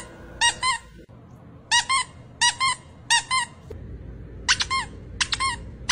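Squeaky-toy squeaks go with each boop of a corgi's nose. Each comes as a quick pair of high squeaks, repeating about every two-thirds of a second, with a few triple squeaks near the end.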